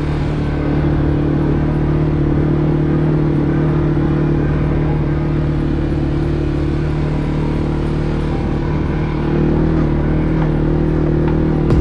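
CFMoto 450 ATV engine running steadily as the quad is ridden along, a little louder from about nine seconds in.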